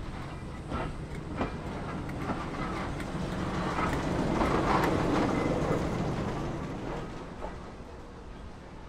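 Short heritage train passing by, its wheels clicking over the rail joints. It grows louder to a peak about five seconds in, then fades.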